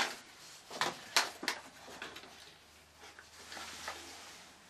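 Kitchen items handled on a table: a few sharp clicks and knocks in the first second and a half, then a soft scraping rustle of a spoon in a paper carton of baking ingredients around three to four seconds in.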